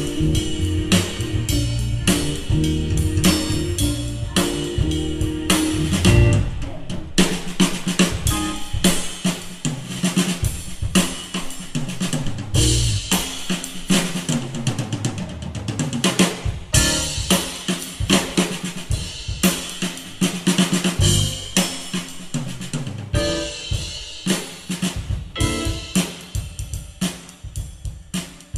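Live band playing an instrumental funk tune on drum kit, electric bass, guitar and keyboards, with the drums to the fore: steady snare and kick hits throughout, and a heavy bass line that thins out after about six seconds.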